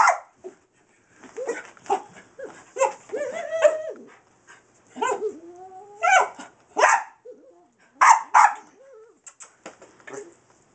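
Small Boston terrier–dachshund mix dog barking excitedly at a laser pointer dot: sharp barks, mostly in quick pairs, with high whining and whimpering between them.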